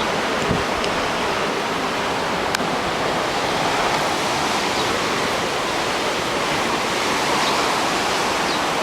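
Heavy hurricane surf breaking on the shore in strong wind: a steady, unbroken wash of crashing waves. There is a single brief click about two and a half seconds in.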